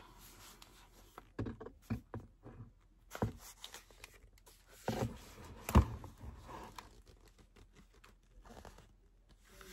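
Book pages turning and the book being handled: paper rustling and a few soft knocks and bumps, the loudest about six seconds in.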